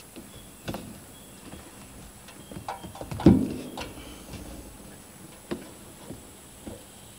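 Scattered knocks and thumps from a 4-inch PVC pipe being pushed and struck by hand into a tight Uniseal rubber adapter in a plastic tank wall, the loudest about three seconds in. The pipe is too tight in the seal to go in.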